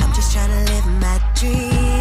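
Hip hop song with a heavy bass line, held synth notes and a sung vocal.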